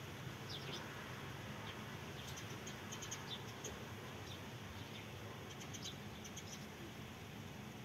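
Faint, scattered high chirps of small birds over a steady background hiss.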